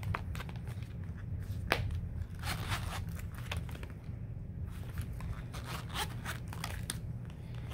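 The zipper of a small Juicy Couture zip-around wallet being run open and closed in short rasping strokes, with clicks and rustles from handling the wallet.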